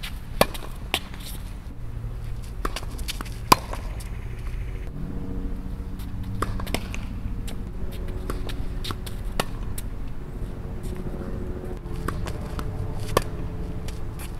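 Tennis rally on a hard court: sharp pops of the ball struck by rackets and bouncing, about a dozen spread unevenly through the stretch, the loudest about three and a half seconds in. A steady low rumble lies underneath.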